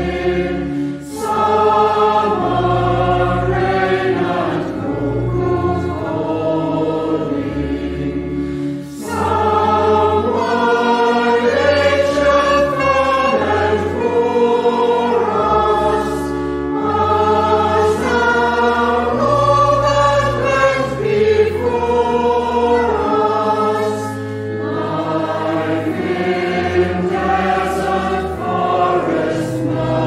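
Congregation singing a hymn together, with brief breaks between lines about a second in and again near nine seconds.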